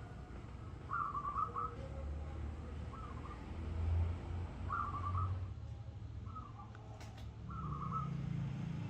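A bird calling repeatedly, short fluttering whistled calls about every one and a half to two seconds, over a steady low rumble.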